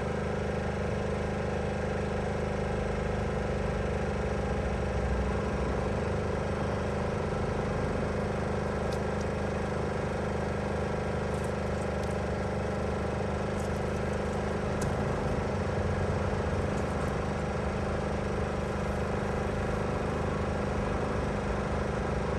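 Portable generator engine running steadily at constant speed, with a few faint high ticks in the middle.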